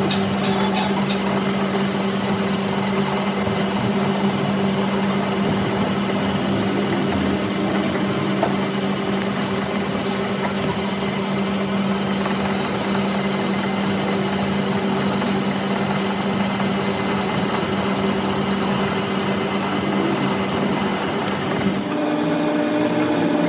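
A machine running steadily with a constant hum over a rushing noise; the tone changes pitch briefly near the end.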